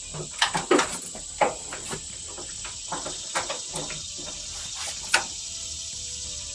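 Irregular clicks and knocks of hand tools being handled while setting up to torque bolts, about nine in all, the loudest about five seconds in, over a faint steady hiss.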